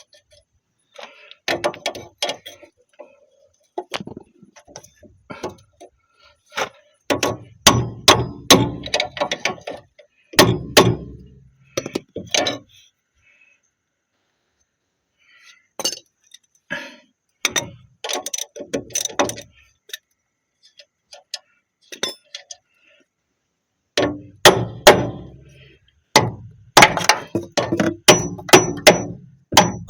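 Hand tools at work on car suspension during a strut replacement: metal clinks and ratchet-like clicking in irregular bursts, with a few heavier knocks and short pauses between bursts.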